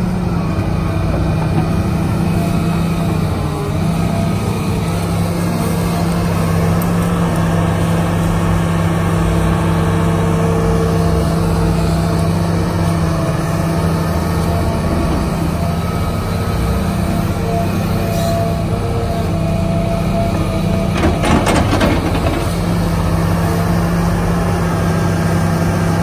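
Hitachi hydraulic excavator's diesel engine running steadily under load while it digs and swings through mud, with a short clatter about three-quarters of the way through.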